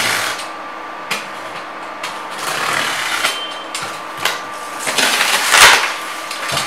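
Utility knife blade cutting along the packing tape at the edge of a cardboard box, in several scraping strokes with the cardboard rubbing and flexing; the loudest rasp comes about five and a half seconds in.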